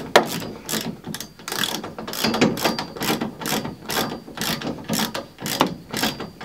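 Hand ratchet wrench clicking in quick, repeated back-and-forth strokes as a roll bar mounting bolt is run in by hand, about three strokes a second.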